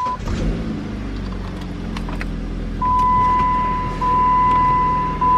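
Jeep Compass four-cylinder engine catching a moment in on a jump start, its battery run flat, then idling steadily. From about three seconds in a dashboard warning chime sounds over it: a loud, steady high beep in long pulses a little over a second apart.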